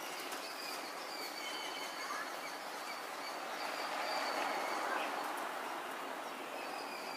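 Steady outdoor background noise with faint, short high bird chirps. A broad noisy swell rises and falls about four to five seconds in. No yowling is heard from the grappling cats.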